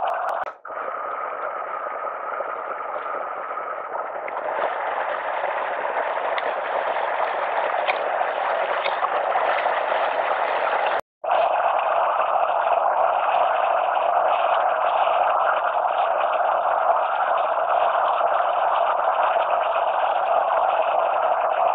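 Fast-flowing moorland stream rushing over rocks close by: a steady rush of water. It cuts out briefly twice, about half a second in and again about eleven seconds in, and is a little louder after the second break.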